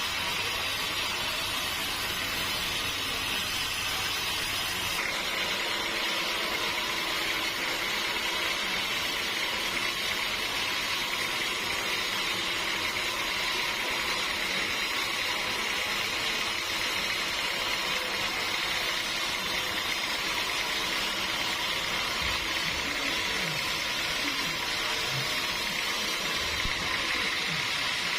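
Sawmill saw running steadily, a continuous mechanical noise with a high whine that settles in about five seconds in.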